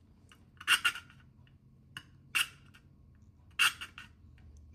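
Small half-round file rasping in three short, separate strokes, touching up the opening for a replacement smokestack on a model locomotive.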